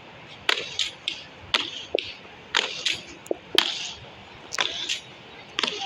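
Repeated footsteps on wet ground, short squelching steps coming unevenly in pairs, about two a second.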